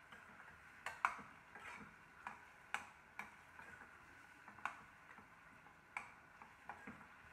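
Spatula knocking and scraping against a stainless steel pan while a thick vegetable curry is stirred: irregular sharp clicks, about one or two a second.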